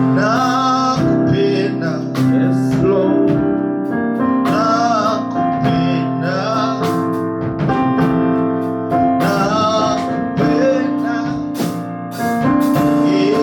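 Slow praise and worship music: held keyboard chords with a voice singing drawn-out phrases over them every couple of seconds.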